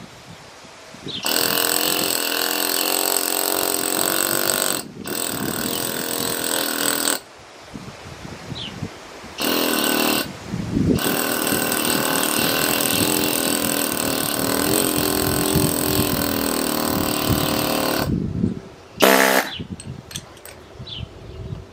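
Pneumatic chisel (air hammer) rapidly chipping into a greywacke river rock, run in bursts of a few seconds with short pauses between them; the longest burst lasts about seven seconds, and a brief last burst comes near the end.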